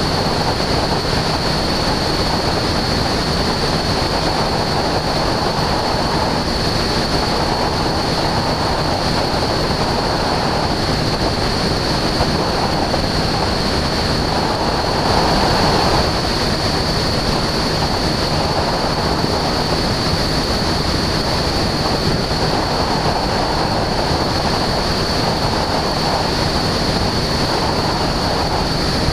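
Husky A-1C light aircraft in cruise flight: steady rush of wind and engine noise, with a steady high-pitched whine over it.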